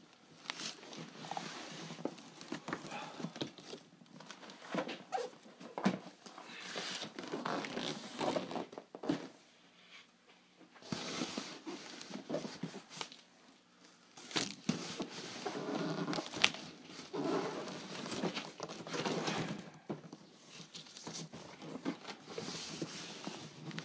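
Cardboard boxes being handled and pulled out of a shipping carton: irregular scraping and rustling of cardboard and packing, with scattered knocks, one sharper knock about two-thirds of the way through.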